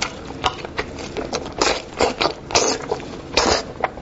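Close-miked mouth sounds of eating braised sheep-head meat: wet sucking and smacking with sharp clicks, and a few longer slurping bursts in the middle stretch.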